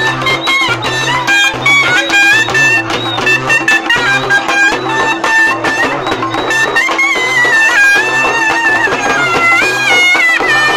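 Live South Indian temple-festival folk music: a reed wind instrument plays a loud melody with many quick note changes and slides, over drum accompaniment.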